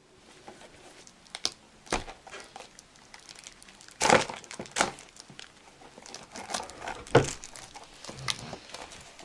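Plastic or foil toy packaging being crinkled and torn open by hand, in irregular sharp crackles and rustles, the loudest about two, four and seven seconds in.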